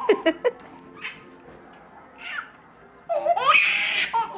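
Baby laughing: a few short, quieter giggles, then a louder, longer burst of laughter near the end.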